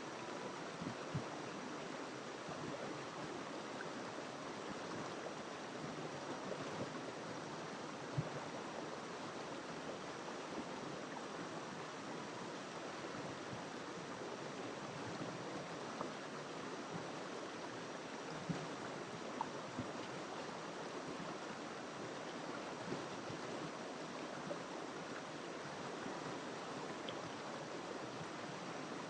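River water flowing and rushing steadily over stones, with a few small splashes or knocks in the current.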